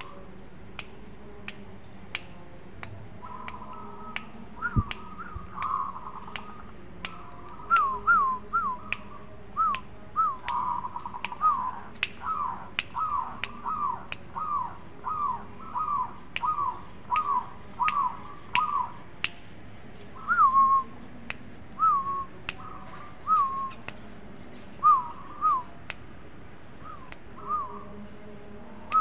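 A caged zebra dove (perkutut) cooing: a long run of short, evenly spaced coo notes that each rise and fall, then slower, spaced-out coos near the end. A steady run of sharp clicks sounds throughout.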